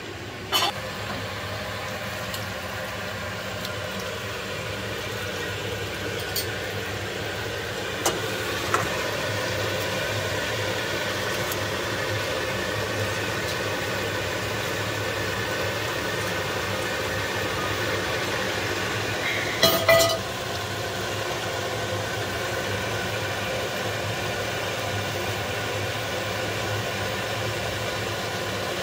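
A steady mechanical hum with a few short knocks, the loudest a quick cluster about twenty seconds in.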